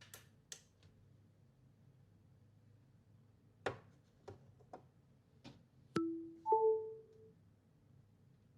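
Several light clicks, like buttons being pressed, then a short two-note electronic chime rising in pitch, the second note ringing briefly and fading.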